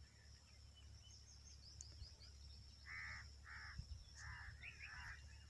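A bird gives four short, harsh calls, about half a second apart, over a faint steady high-pitched whine.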